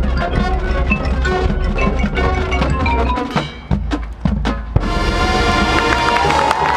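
Marching band playing: a fast, busy passage with sharp drum and mallet-percussion strikes, thinning out briefly past the middle, then the full ensemble holding one loud sustained chord from about five seconds in.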